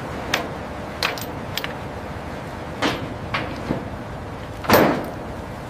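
A series of sharp metal knocks and clanks at irregular intervals over a steady background noise, the loudest about five seconds in, as a heavy fuselage section settles onto its cradle.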